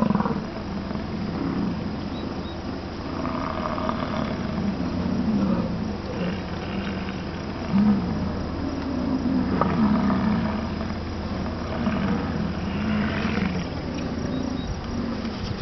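American bison bulls bellowing, the rutting call of the breeding season: a series of low, rumbling roars, one after another, sometimes overlapping.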